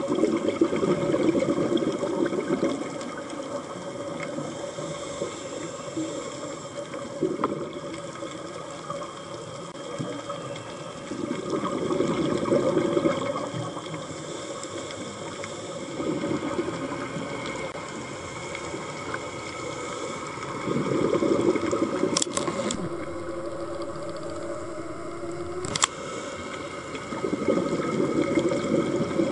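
Scuba diver breathing through a regulator underwater: a burst of exhaled bubbles every four to six seconds over a steady underwater hiss. Two sharp clicks come a few seconds apart near the end.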